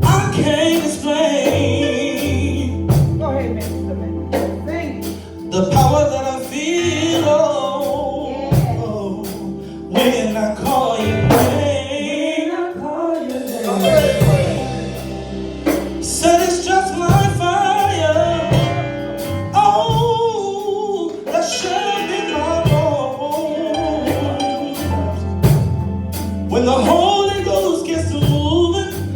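Live gospel music: singers carrying a slow praise song over a band, with drums keeping a steady beat and a bass line underneath.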